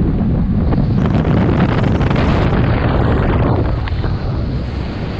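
Motorboat under way at speed, with its 1999 Evinrude FICHT 150 two-stroke outboard running and wind buffeting the microphone in a loud, steady rush. The loudness eases a little about four seconds in.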